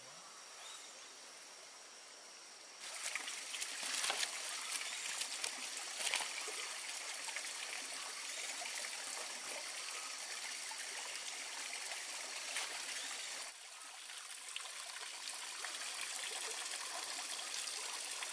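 Water trickling and dripping from a fine-mesh lift net as it is raised out of a pond, with scattered drips and small splashes. It starts suddenly about three seconds in, after a quiet stretch with faint steady insect tones.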